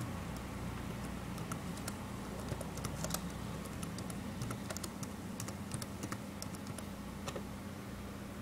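Typing on a computer keyboard: irregular runs of key clicks, thinning out near the end, over a steady low hum.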